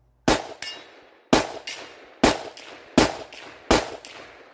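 Five semi-automatic shots from a Zastava ZPAP92 AK pistol in 7.62x39 with a 10-inch barrel, fired through a Strike Industries JCOMP Gen2 muzzle brake. The shots come at a steady pace of about one a second, and each is followed by a fainter echo.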